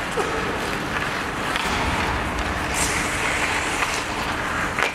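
Ice hockey skates scraping and carving on the ice, a steady hiss, with a couple of sharp stick-and-puck clacks, one near the end.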